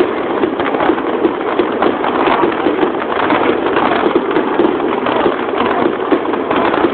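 Dense, unbroken crackling of firework bursts overhead at close range, from gold crackle stars: countless small sharp pops that patter like heavy rain.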